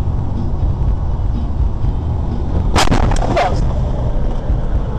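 Steady low road and engine rumble inside a moving car, broken about three seconds in by a short burst of sharp cracks.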